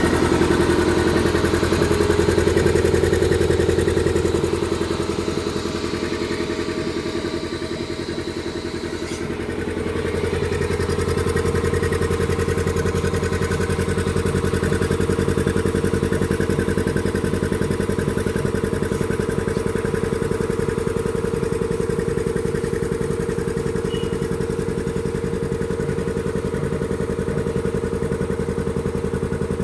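Vacuum compressor running steadily with a hum and a fast, even pulsing. Its sound dips about five seconds in and comes back up about ten seconds in.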